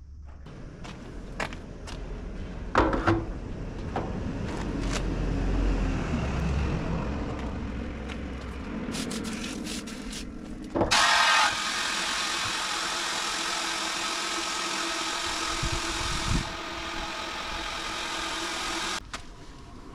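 Knocks and clatter as the fuel tank is handled. Then water from a hose runs into the tank as a steady, loud hiss, starting suddenly about halfway through and cutting off near the end. The tank is being filled to leak-test it.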